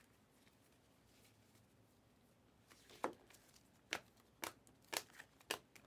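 Near quiet, then from about three seconds in a run of sharp flicking clicks, roughly two a second: trading cards being flipped through and handled.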